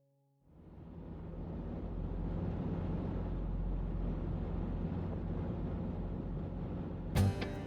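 A steady rushing noise with a deep rumble fades in over the first second or two and holds. Acoustic guitar music starts near the end.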